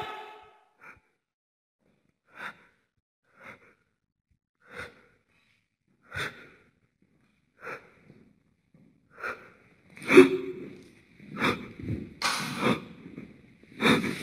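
A person's short, breathy huffs, about one every second and a half, followed by louder knocks and rattles of objects being handled over the last few seconds.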